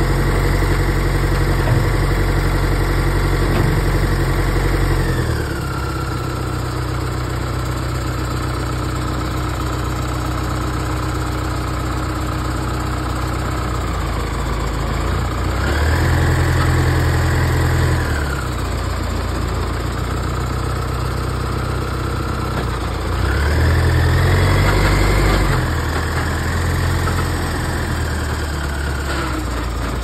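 Case 680 backhoe loader's engine running, held at higher revs for the first five seconds and then dropping to a lower speed. It revs up twice more, near the middle and about three quarters through, each time for two or three seconds before falling back.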